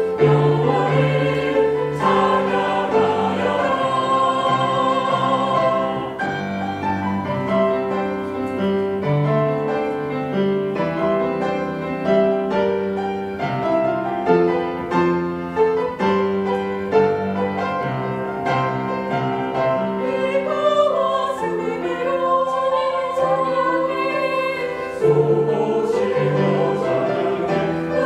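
Mixed church choir singing a Korean praise anthem in full harmony, with piano accompaniment, holding long notes that change about every second.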